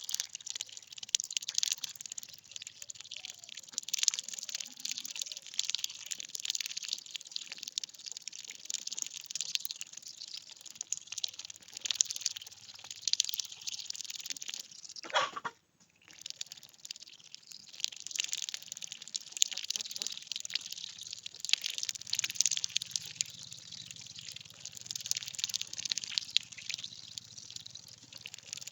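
Water splashing and pattering as lesser whistling ducks dabble and move about in it: a dense, uneven crackle of small splashes that breaks off for a moment about halfway through.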